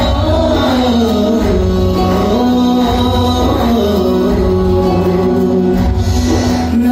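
Dance song played loud: a sung melody over a strong, steady bass beat.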